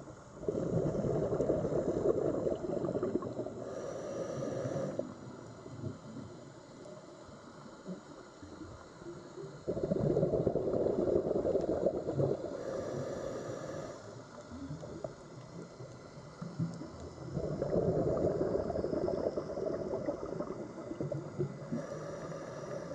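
Sea water ambience that swells in three long surges about eight seconds apart, each lasting four or five seconds. Faint high tones come in near the end of each surge.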